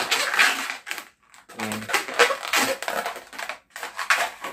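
Pink latex modelling balloon being gripped and twisted by hand, the rubber rubbing and crackling in a series of short bursts.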